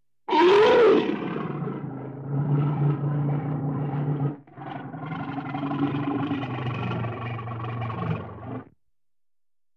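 Brown bear vocalising: a loud call opens it, rising then falling in pitch, followed by a long, low growl. The growl breaks off briefly about four seconds in, carries on, and stops shortly before the end.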